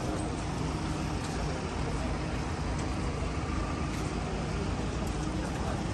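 City street traffic with a motor vehicle engine running steadily close by, under a general hum of road noise.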